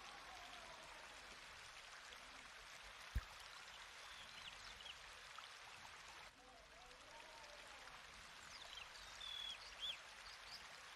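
Faint, steady trickle of running water, with birds chirping a few times in the second half. A single sharp knock comes about three seconds in.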